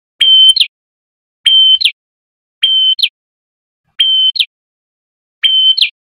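A male red-headed prenjak, a tailorbird, calling over and over: five loud phrases about every second and a half. Each is a held high whistle ending in a quick falling note.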